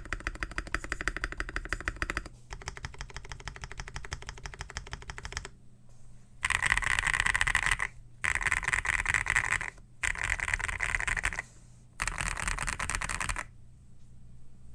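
Fast typing on a GMK67 mechanical keyboard with lubed and filmed Feker Holy Matcha V2 switches, Shimmer XDA keycaps, modded stabilizers and a foam- and polyfill-dampened case. The typing starts as steady rapid clicking, turns softer, and after a short pause comes in four louder bursts of about a second and a half each.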